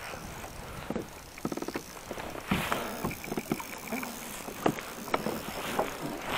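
Water slapping and lapping against a plastic fishing kayak's hull, with irregular knocks from handling gear on board. About a second and a half in there is a brief run of fast, even clicking from the fishing reel as the hooked catch takes line.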